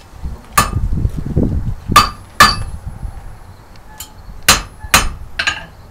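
A blacksmith's hand hammer striking a horseshoe held in tongs on an anvil: about seven ringing metal blows at an uneven pace, one of them lighter.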